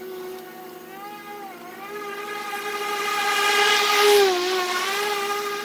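Hart 40-volt brushless battery push mower running with a steady whine, its pitch dipping briefly twice as the blade takes the load of tall grass. It grows louder and hissier as it passes close by about four seconds in, then eases off.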